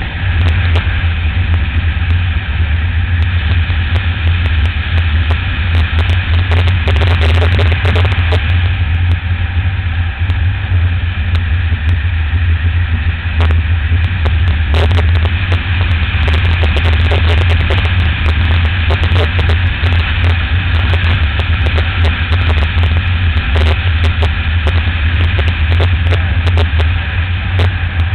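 Wind rushing over the microphone of a camera on a moving motorcycle, a loud steady low rumble, with the motorcycle's engine running underneath.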